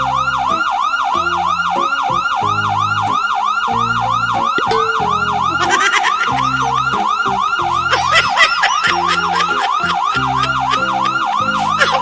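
Electronic police siren in a fast yelp, its pitch sweeping up and down about three times a second without a break, growing brighter about six seconds in.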